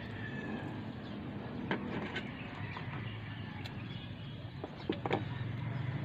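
A few light clicks and snips of hand scissors trimming plant stems and leaves, over a steady low outdoor hum.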